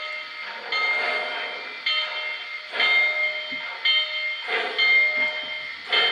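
Model 2-8-2 steam locomotive's sound system chuffing slowly at about one exhaust beat a second as it gets under way, with a steady high tone sounding between the chuffs.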